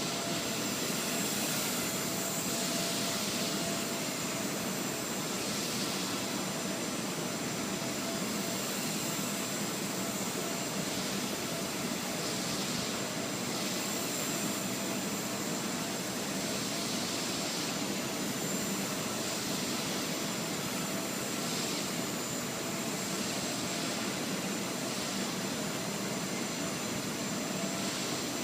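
Blade 130 X micro RC helicopter in flight: a steady whine of its electric motors and the whir of the rotor blades, swelling briefly now and then as it manoeuvres.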